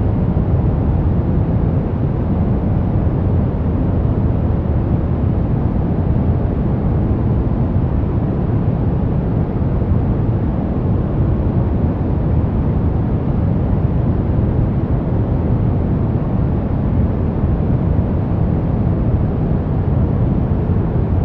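Steady 'white noise' relaxation track: an unchanging rushing hiss, heavy in the bass with little treble.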